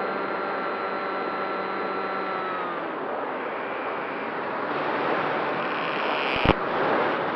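Model airplane in flight: a steady electric motor whine that fades out about three seconds in, over a constant rush of wind noise, with one sharp click near the end.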